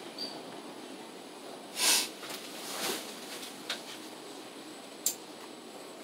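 Daesung elevator car running down a floor: a steady hum of travel, broken about two seconds in by a brief loud rush of noise, then a softer rush and a couple of sharp clicks.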